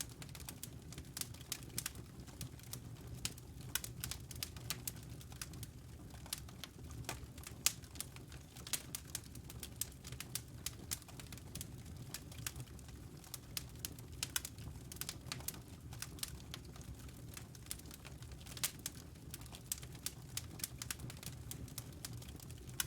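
Wood fire crackling in a fireplace: irregular sharp pops and snaps, several a second, over a steady low rumble of the burning logs.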